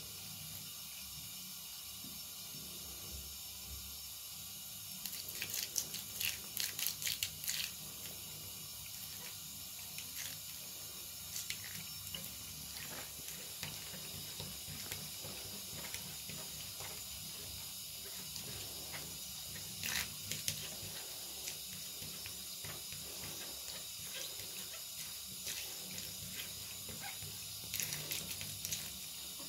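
Thin stream of tap water running into a bathtub, a steady hiss, broken by quick clusters of splashes and clicks as a Cornish Rex cat plays in the stream. The busiest splashing comes about five to eight seconds in, with shorter bursts around twenty seconds and near the end.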